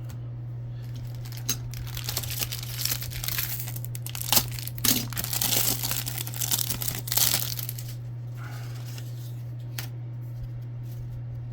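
A trading-card pack wrapper being torn open and crinkled by hand. The rustling comes in spells and is busiest in the middle, then gives way to a few light clicks, over a steady low hum.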